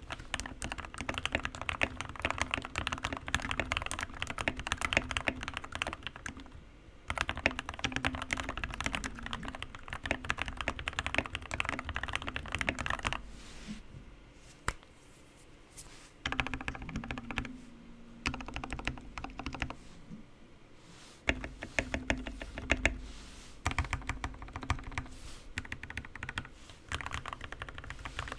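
Typing on a Keychron K6 mechanical keyboard with lubed Gateron Black Ink switches and foam filling, in fast runs of keystrokes broken by short pauses. The unmodded spacebar pops each time it is hit.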